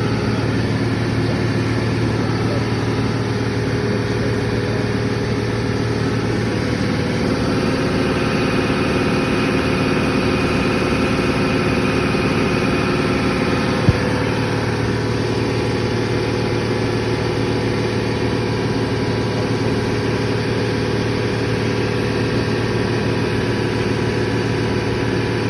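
Belt-driven open-drive compressor and its electric motor running steadily with a constant hum, with one sharp click about halfway through.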